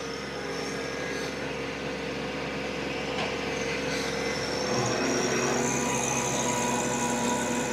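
TYM T264 compact tractor's 24.8-horsepower engine running under load as it pulls a five-foot rotary tiller sunk deep into clay soil, the tines churning the dirt. The sound grows louder about halfway through, as a high whine rises.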